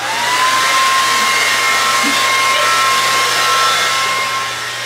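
Handheld hair dryer switched on: its motor whine rises to a steady pitch within a fraction of a second, then it blows steadily with a loud airy rush, a little quieter near the end.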